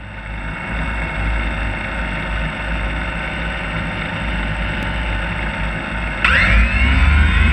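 DJI Phantom quadcopter's electric motors and propellers idling on the ground with a steady whirring hum, then spinning up about six seconds in with a sudden, louder rising whine as it throttles up for takeoff.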